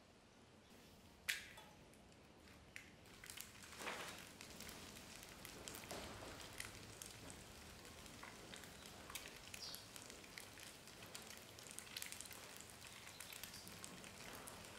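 Egg frying in hot oil in a nonstick pan. After a quiet start and one sharp click, sizzling with dense little spitting pops sets in about four seconds in and keeps on.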